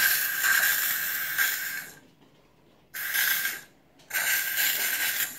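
Aerosol can of shaving foam spraying into a bowl: a hiss of about two seconds, a short burst about three seconds in, then another long hiss near the end.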